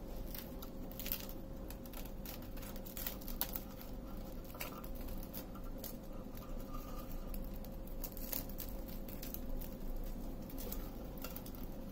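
Crisp ghee roast dosa crackling and rustling under the fingers as it is folded into a cone: scattered small crackles over a faint steady hum.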